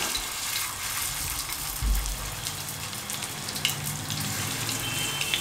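Chicken seekh kababs on wooden skewers sizzling in a little oil on a hot flat tawa: a steady frying hiss with faint crackles. A soft low thump about two seconds in.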